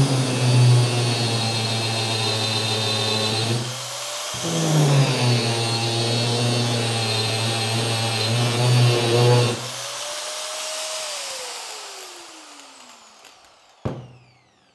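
Makita GA5030 angle grinder running with no disc on a test run after new gearbox gears were fitted, a steady motor-and-gear whine that sounds like new. It cuts out briefly about four seconds in and starts again, is switched off about ten seconds in and winds down with a falling whine, and a short knock follows near the end.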